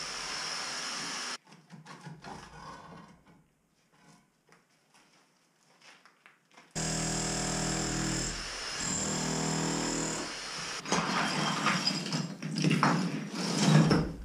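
Electric demolition hammer chiselling into a brick hearth, a steady rapid hammering buzz with a high whine that stops abruptly, then starts again about halfway through for a few seconds. Near the end, loose bricks and rubble clatter and knock in irregular strikes, the loudest just before the end.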